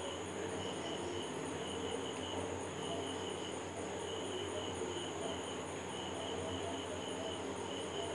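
Banana fritters deep-frying in hot oil in a karai, a steady sizzle. Insects chirp in the background: a high pulsing trill and a lower chirp that comes and goes.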